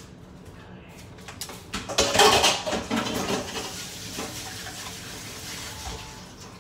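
Kitchen clatter of dishes and utensils being handled: a few light clicks and knocks, then a louder clattering, rustling burst about two seconds in that tails off into a faint steady hiss.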